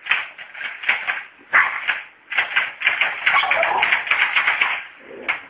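Small dog barking excitedly in a quick run of short, repeated barks.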